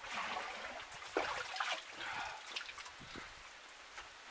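Muddy water sloshing and splashing as a plastic bucket is dipped and filled, with a few light knocks; it quietens over the last second or two.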